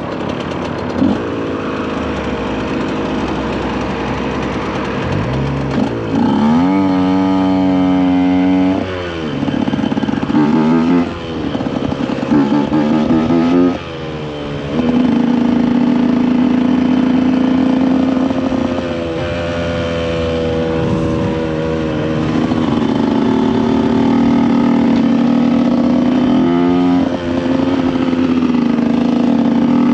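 KTM EXC 125 two-stroke single-cylinder engine under way, revving up through the gears: the pitch climbs and drops three times at each shift, then holds high and steady, with one more shift near the end.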